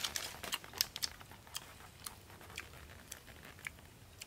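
Small sharp clicks and crackles, irregular and several a second, thickest in the first second, from fingers and a small wooden stick working at boiled snails.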